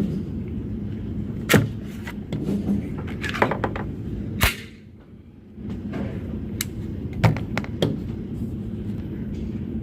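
Kel-Tec PMR-30 .22 Magnum pistol firing about half a dozen sharp shots at irregular intervals, the loudest about four and a half seconds in.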